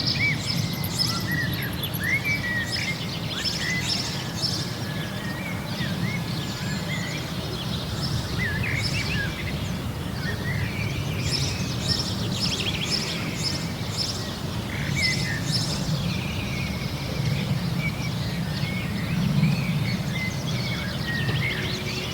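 Many small birds chirping and twittering, their short repeated notes overlapping throughout, over a steady low rumble of background noise.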